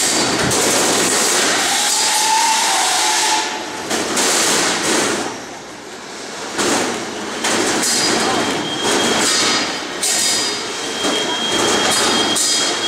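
Small combat robots fighting: electric drive motors whining, with grinding scrapes and repeated knocks as the robots slide and collide on the arena floor.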